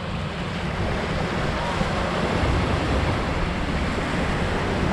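Steady wind buffeting the microphone, a constant low rumble, over the wash of small waves on the shore.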